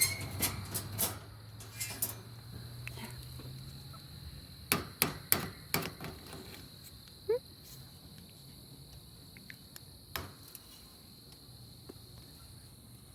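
Crickets chirping steadily, with sharp taps and clicks over them: a few in the first second, four in quick succession about five seconds in, and one more around ten seconds.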